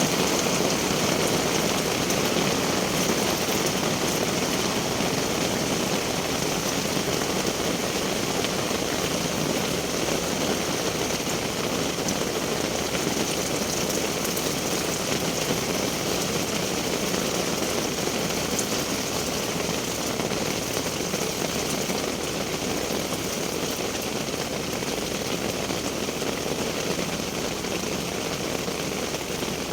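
Steady rain falling: an even hiss with faint scattered drop ticks, heard from inside a tent.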